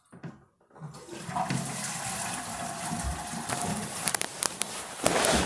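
Toilet flushing: rushing water starts about a second in and grows louder near the end.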